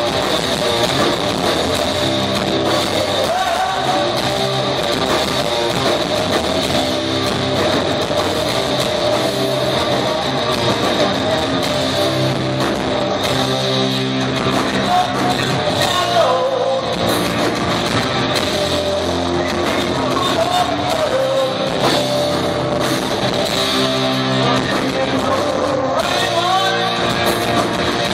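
Live rock band playing loud through the PA: distorted electric guitars, bass and drums, with a singing voice over them, heard from the audience in a concert hall.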